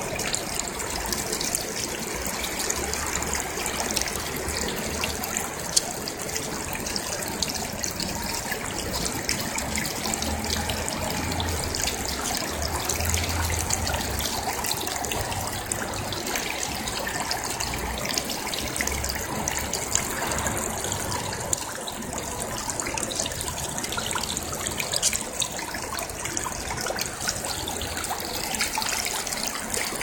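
Small stone fountain running: a single jet of water splashing steadily back into its scalloped stone basin.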